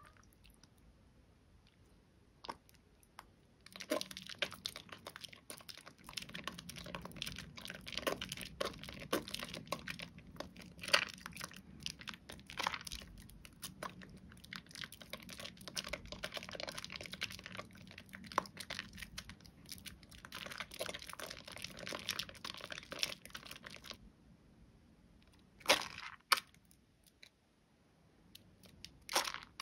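A soaked bar of Bio Mio bio-soap being lathered into thick foam, a dense crackle of small wet clicks. It starts a few seconds in and stops about four seconds before the end, with two short louder bursts after that.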